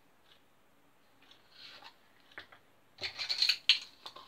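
Small handling noises from opening a plastic tub of baking powder: a faint rustle, a single click, then a short run of scrapes and clicks as measuring spoons on a ring rattle near the end.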